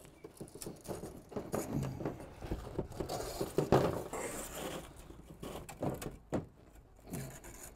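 Old flyscreen mesh being lifted off its metal frame and handled. It makes irregular rustles and scrapes, with light clicks and knocks against the frame.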